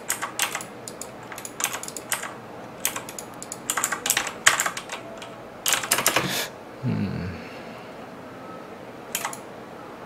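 Computer keyboard being typed on in quick bursts of key clicks, stopping about six and a half seconds in, with one more short burst near the end.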